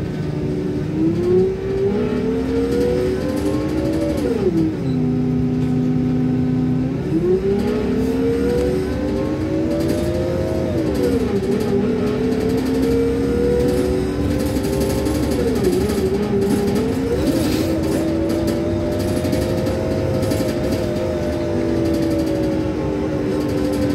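Bus engine and drivetrain heard from inside the cabin: a whine that rises in pitch as the bus gathers speed, drops sharply about four seconds in and holds low for a few seconds, then climbs again and dips a few more times as the speed changes, over a steady low rumble.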